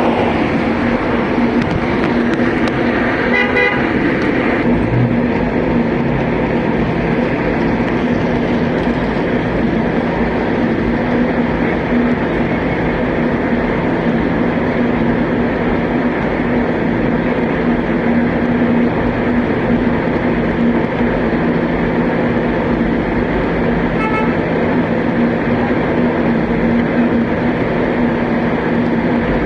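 New York City subway train running, a loud steady rumble with a constant low hum through it, and a brief high chirping about three seconds in.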